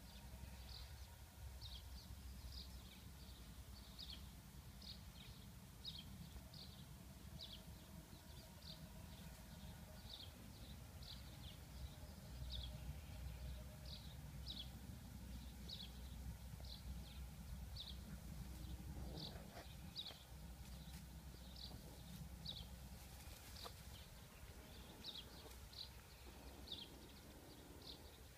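Faint short high chirps of a bird, repeated steadily a little more than once a second, over a low outdoor background rumble.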